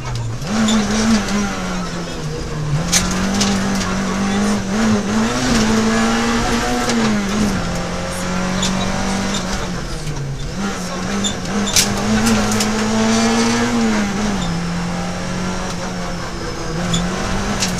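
Peugeot 106 XSI rally car's four-cylinder engine heard from inside the cabin at speed, the pitch climbing under acceleration and dropping several times as the driver lifts off and changes gear. A few sharp clicks sound over the engine.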